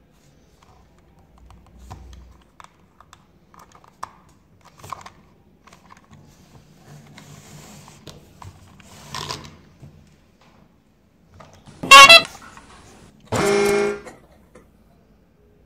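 Plastic toy trains handled and pushed across cardboard with light clicks and scrapes, then a battery-operated toy train's electronic sound effects: a short, very loud rapid-pulsing burst about twelve seconds in, followed by a steady horn toot lasting under a second.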